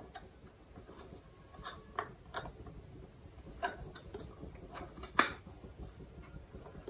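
A few faint clicks and light taps, spaced irregularly, the clearest about five seconds in, from hands working a removable-bottom tart pan to push the tart free.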